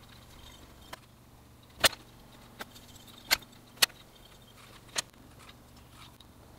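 Wooden Prismacolor Premier coloured pencils being swapped: six sharp clicks as pencils are put down and picked up, the loudest just under two seconds in, with faint pencil scratching on paper between them.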